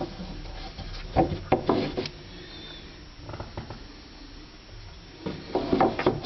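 Light knocks and scraping of a hand and a plug on a cable against the MDF panels of a cabinet, a few sharp knocks about a second in and a denser run of knocks near the end.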